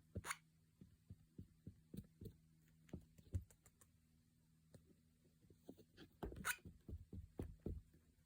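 Cockatiel's odd sounds: a run of faint, irregular soft thumps, thickest about six to eight seconds in, with two short hisses, one just after the start and one about six and a half seconds in, over a faint steady low hum.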